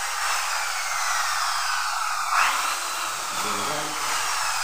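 Handheld corded power tool running steadily, its electric motor giving an even whirring hiss, with a brief louder burst about halfway.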